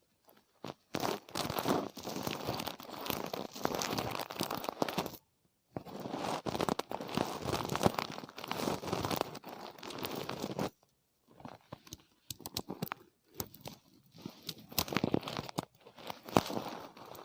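ASMR ear-cleaning sounds: dense, close scratching and crinkling in stretches of several seconds, broken twice by brief silences.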